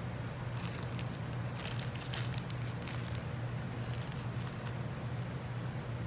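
Soft crackling rustles of wool fibres being pulled apart and pressed onto a needle-felted figure by hand, in three short spells, over a steady low hum.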